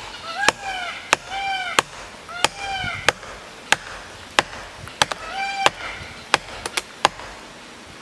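Plastic felling wedge being hammered into the back cut of a dead tree: about a dozen sharp strikes, roughly one every two-thirds of a second, coming quicker near the end. The wedge is being driven in to lift the tree over its hinge and send it the way it is meant to fall.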